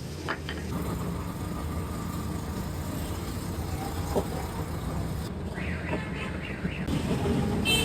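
Steady low machine rumble with a few clicks and brief higher tones.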